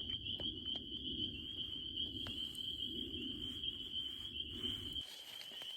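A dense, steady, high-pitched chorus of crickets chirping, with a low rumbling haze underneath that stops about five seconds in.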